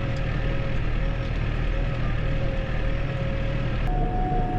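Tractor engine running steadily under way, heard from inside the cab, with a thin steady whine over the low drone that steps up to a higher pitch after a click about four seconds in.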